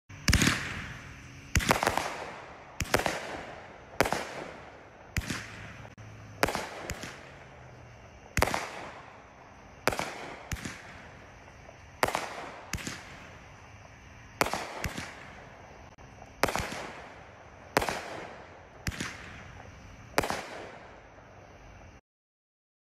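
Phantom Fireworks Silversonic Warhead, a 200g 12-shot cake, firing its shots in sequence: a sharp bang roughly every second, each trailing off in a fading rumble. The sound cuts off suddenly near the end.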